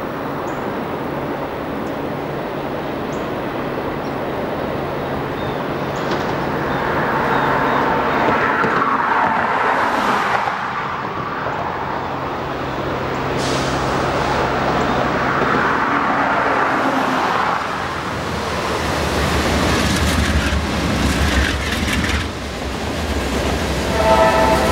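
GE C40-9W and Dash 8-40CW diesel-electric freight locomotives working as they approach and pass close by, a steady engine drone with the sound swelling twice as the units go past, then a deeper low rumble as the train rolls on.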